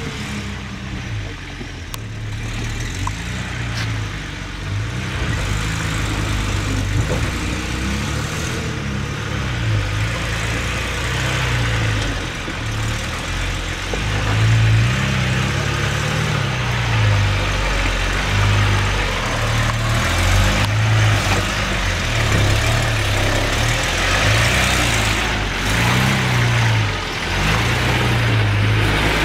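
Nissan Patrol GQ four-wheel drive's engine working at low speed under load as it climbs a rutted rocky track, revving up and falling back every second or two as the throttle is eased on and off. It gets louder about halfway through.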